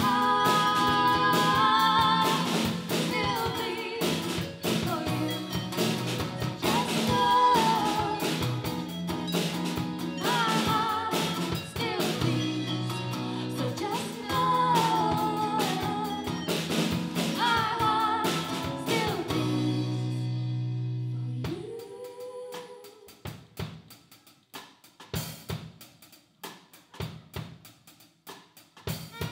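A live band plays a song: a female voice sings lead over acoustic guitar, a Nord Lead 3 synthesizer and a drum kit. About 21 seconds in the band drops to a sparse break of scattered drum hits and one held note, and the full band comes back in just at the end.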